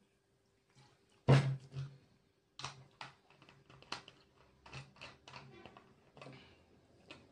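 Close-miked chewing and lip-smacking of a stuffed cabbage roll (cabbage dolma): a run of irregular sharp mouth clicks and smacks, the loudest a little over a second in.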